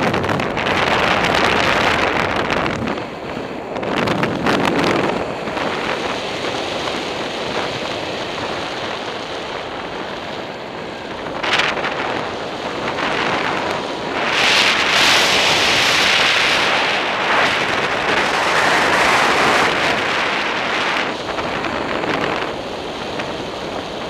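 Airflow from a motorless paraglider flight rushing over the microphone, swelling and easing in gusts, loudest about two-thirds of the way through.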